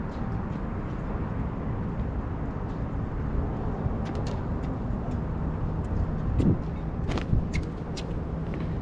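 Steady low rumble of outdoor background noise, with scattered sharp pops of pickleball paddles striking the ball, the loudest about seven seconds in.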